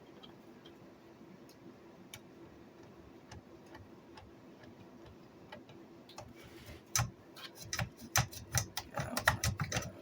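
Hands handling the opened 1965 Record-O-Fone answering machine: a faint steady hum for several seconds, then from about seven seconds in an irregular run of sharp clicks and knocks.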